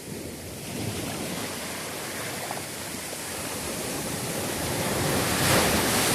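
Sea surf: waves washing on the shore, the rush swelling to its loudest about five and a half seconds in as a wave breaks, then starting to ease.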